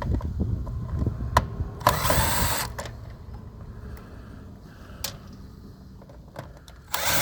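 Power drill driving screws out of an iRobot robot vacuum's plastic housing, its motor running through the first few seconds. Sharp clicks of plastic parts come throughout, with a loud scraping rattle about two seconds in and another near the end.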